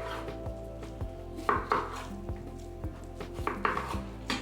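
Knife chopping vegetables on a cutting board: a few sharp knocks at uneven intervals, over background music with held notes.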